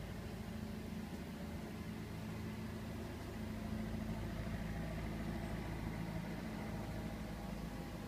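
Car engine idling with a steady low hum.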